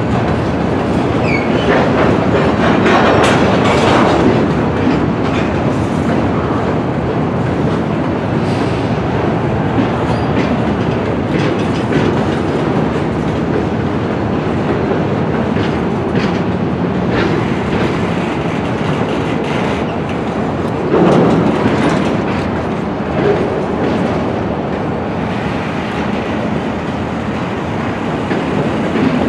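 Freight cars, a covered hopper followed by flatcars, rolling past on yard track. Their steel wheels keep up a steady rumble, with scattered sharp clacks over the rail joints and a brief louder swell about two-thirds of the way through.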